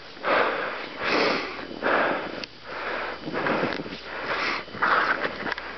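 A person breathing hard and close to the microphone, a noisy breath about once a second.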